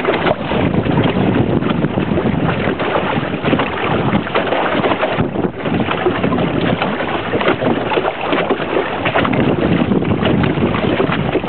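Wind buffeting the microphone over water rushing and splashing past the hull and outrigger of a sailing outrigger canoe under way. The rush is steady, broken by many small irregular splashes and gusts.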